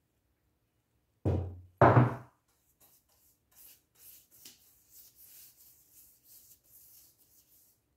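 Two knocks a little over a second in, then faint, repeated swishing as chemical paint stripper is spread across the oak door's surface.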